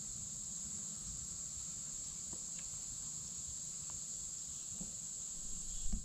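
Steady high-pitched insect chorus, with a low rumble underneath and a few faint ticks.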